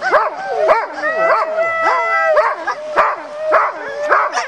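A team of sled dogs yelping, howling and barking all at once, several voices overlapping in a loud chorus of rising and falling cries, with short sharp barks among them: the clamour of dogs eager to run.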